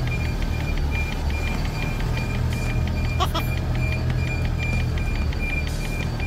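Mercedes-Benz tractor-trailer reversing: a steady, even high-pitched reversing alarm beeping over the low, steady drone of the diesel engine, heard from inside the cab. A brief chirp about three seconds in.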